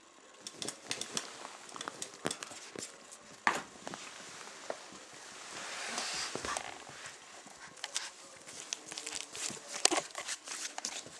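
Chinese crested puppies' claws and paws tapping and scrabbling on a hard floor: irregular sharp clicks and taps, with a rustling swell about six seconds in.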